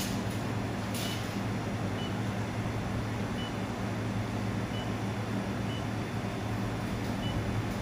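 Steady low hum of a running fiber laser welding machine and its cooling unit, with a faint click about a second in and a few brief, faint high blips.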